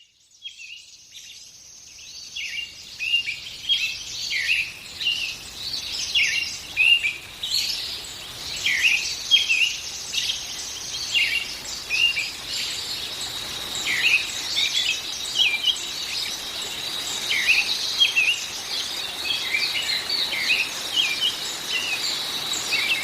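Songbirds chirping and calling in short repeated notes, fading in at the start. A steady, thin high tone joins them about halfway through.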